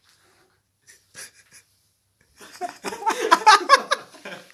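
Near silence with a few faint clicks, then about halfway in a person breaks into loud, breathy wheezing.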